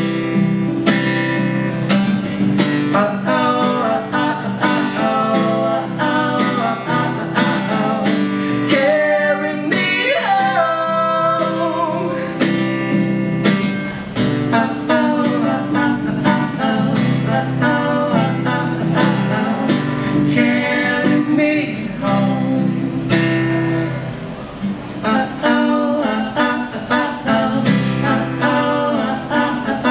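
Acoustic guitar strummed in a steady rhythm, with singing over it, played live.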